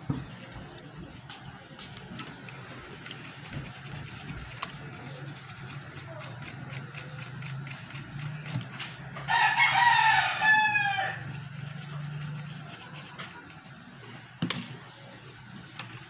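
A rooster crows once, about nine seconds in, a falling call lasting about two seconds. Around it runs a quick series of light ticks over a low steady hum.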